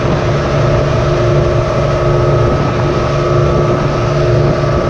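Motorboat engine running steadily at an even pitch.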